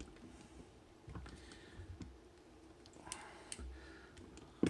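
Faint, scattered clicks of buttons being pressed on a spectrum analyzer's front panel, a handful spread through, with a sharper click at the very end.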